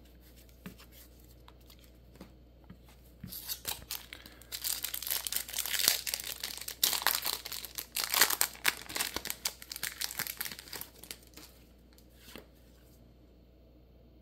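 Foil trading-card booster pack wrapper being crinkled and torn open by hand. The crackling rustle starts about three seconds in and runs for about eight seconds before stopping.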